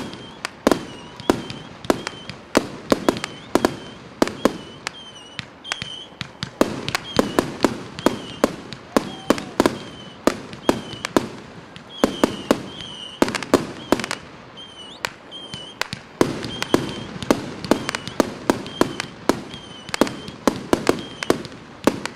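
Fireworks display: a rapid, uneven string of sharp bangs from aerial shells bursting, several a second, with short high-pitched tones between the bangs.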